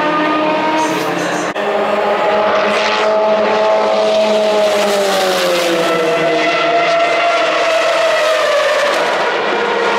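Prototype race cars at full speed on the straight, among them the Mazda 787B with its four-rotor rotary engine. The high-pitched engine notes fall in pitch as the cars go by, once midway through and again near the end.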